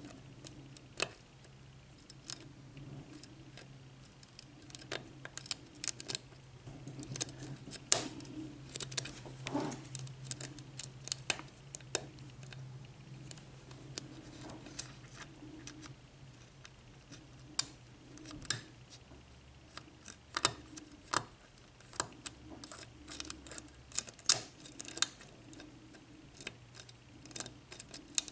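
Lock pick and tension wrench working the pins inside a Schlage 6-pin cylinder lock: small metallic clicks and scrapes at an irregular pace.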